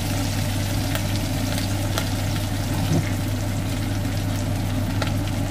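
Salmon frying in shallow oil in a pan, sizzling with scattered small crackles, over the steady hum of a kitchen extractor fan.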